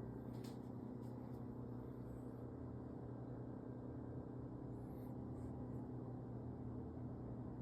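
Steady low hum, with a few faint clicks about half a second in and again about five seconds in.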